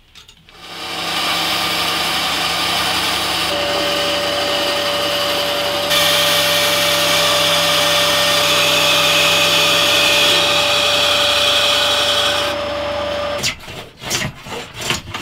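Benchtop band saw running and cutting through oak: a steady motor-and-blade noise, with a steady whine joining a few seconds in and more hiss as the blade cuts. It stops near the end, and quick rhythmic strokes of a hand plane on the wood follow.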